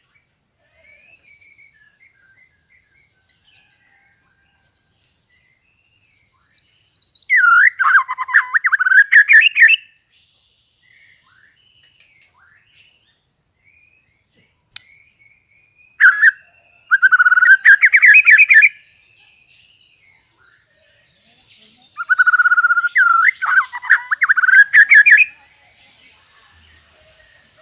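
White-rumped shama singing: four clear, high whistled notes, then three loud bouts of fast, warbling trills a few seconds apart, with canary-like phrases learned into its song.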